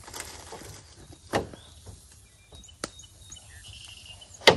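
Knife cutting a red bell pepper on a cutting board: a few separate knocks as the blade goes through onto the board, the loudest near the end. Faint bird chirps in the background.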